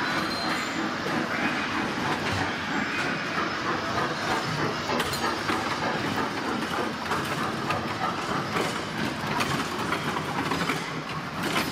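Small children's ride train with its little wagons rolling close by in a large echoing hall: a steady rattling and clattering of the cars, with many small clicks.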